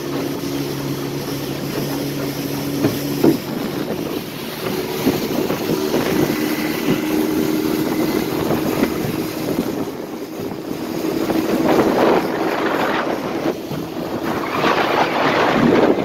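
Small tiller outboard motor running at speed, pushing a fishing boat across choppy water, with water rushing past the hull and wind buffeting the microphone.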